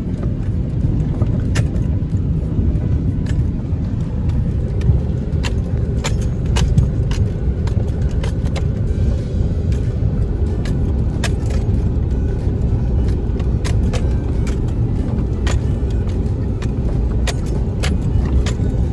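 Car driving, a steady low rumble with scattered sharp clicks and rattles.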